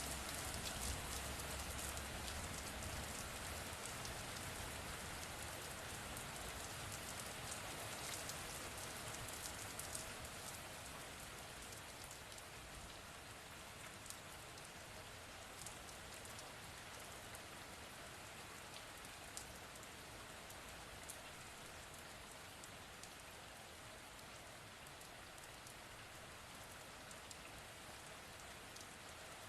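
Steady rain falling, with scattered sharp drop ticks over a continuous hiss. A faint low rumble dies away in the first few seconds, and the rain eases slightly over the first ten seconds or so before holding steady.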